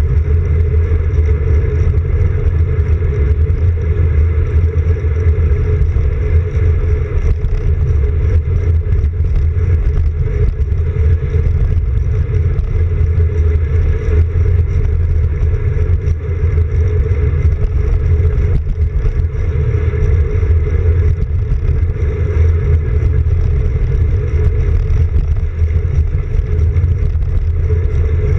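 Steady rumble of wind buffeting and road vibration, picked up by a camera mounted on a road bike's handlebars while riding along an asphalt path.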